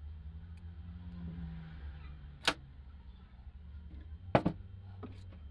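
Sharp metallic clicks of small jeweller's hand tools and a gold bracelet being handled on a metal workbench: one click about halfway through and a quick double click near the end, over a low steady hum.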